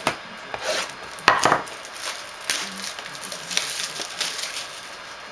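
Trading-card pack being opened and handled by hand: a string of sharp crinkles and clicks, the loudest about a second and a half in.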